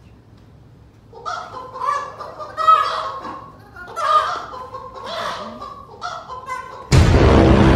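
Two men letting out repeated loud, honking yells and shrieks in bursts of a second or so each. About seven seconds in, a much louder harsh, buzzing blast cuts in.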